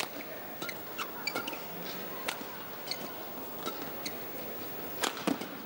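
Badminton rally: sharp, irregular racket-on-shuttlecock hits and brief shoe squeaks on the court, over a low steady arena crowd murmur. The loudest pair of hits comes near the end.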